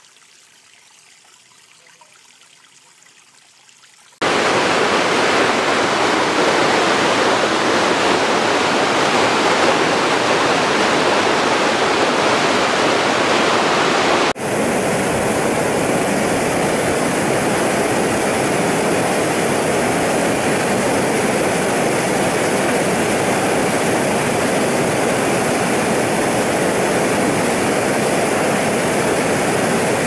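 A small creek cascade trickling softly over rocks. About four seconds in the sound cuts abruptly to a loud, steady rush of water, and about ten seconds later it cuts again to the rush of churning white water below a low concrete weir.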